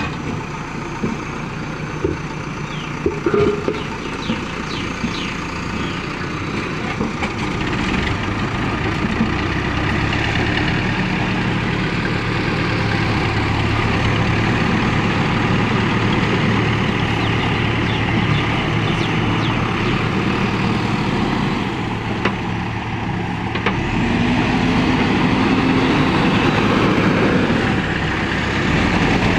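Heavy diesel machinery running under load as a JCB 3DX backhoe loader pushes a road roller to bump-start its engine. The engine note rises about eight to ten seconds in, dips briefly later and picks up again.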